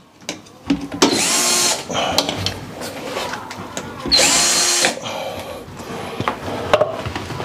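Power drill-driver backing screws out of a washing machine's casing: two short runs about a second each, about one and four seconds in, with clicks and knocks of handling in between.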